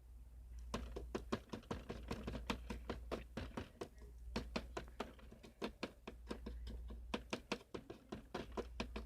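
Rapid, irregular tapping and clicking of toys being handled and knocked against a hard surface, several taps a second, starting under a second in, over a steady low hum.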